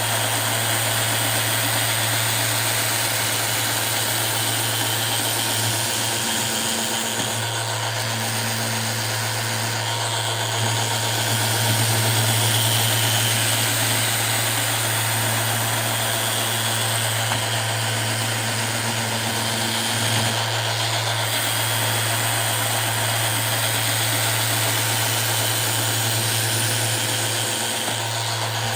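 Electric sander running steadily, smoothing the joined seam of a sink countertop, with a constant hum and hiss and only small swells in level.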